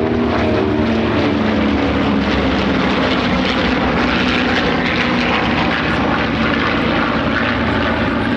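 Formation of WWII piston-engined warbirds (B-25 Mitchell, P-38 Lightning, P-51 Mustang and F4U Corsair) flying past, a loud, steady drone of several propeller engines.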